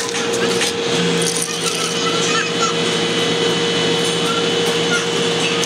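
Steady drone of construction machinery running, most likely a crane or equipment engine. Its hum rises a step in pitch about a second in and then holds steady, with a few faint short chirps over it.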